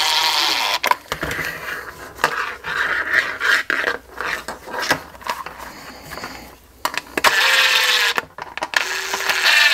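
Cordless driver running briefly as it backs out a screw on a kydex holster, then running again near the end. Between the two runs there are the rustles and clicks of the holster and nylon strap being handled.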